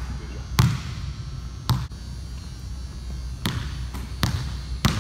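Basketball bouncing on a hardwood gym floor, about five separate unevenly spaced bounces, over a steady low hum.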